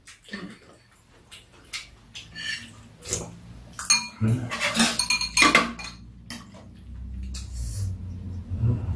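Metal spoons and chopsticks clinking and scraping against ceramic bowls during a meal, scattered light clinks that come thickest around the middle.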